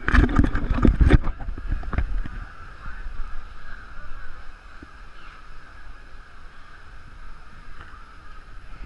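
Sound picked up through a GoPro's sealed waterproof housing: a quick run of knocks during the first two seconds, then a steady, muffled rumble.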